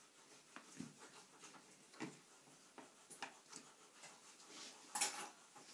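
Faint scattered taps and clicks of magnets and paper cards being handled on a whiteboard, with a short louder burst of noise about five seconds in.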